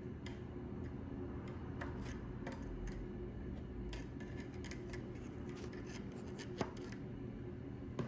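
Faint scattered clicks and rubbing of small parts being handled while a new rubber O-ring is seated, with one sharper click near the end, over a steady low hum.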